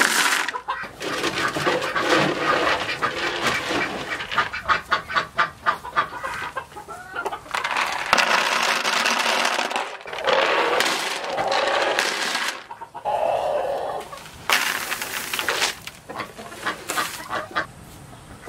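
Chickens clucking, with several louder outbursts about halfway through and again near the end.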